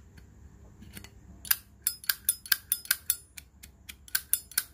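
Brushed-chrome Zippo lighter being worked by hand: from about a second and a half in, a quick run of sharp metallic clicks, each with a short ring, about four a second. This is the lid being flicked and the flint wheel struck to show that the wheel is still sharp.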